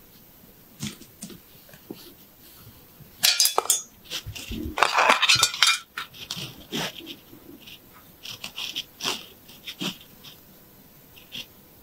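Close-miked scratching and rubbing at a person's ear during ear cleaning, with scattered sharp clicks and two loud spells of scratchy crackling a few seconds in.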